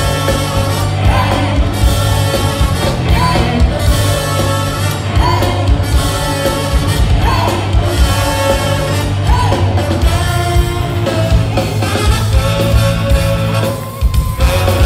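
Live funk-jazz band playing: a trombone carrying the melody in repeated short phrases over electric bass and drums, with singing. The band drops out briefly near the end.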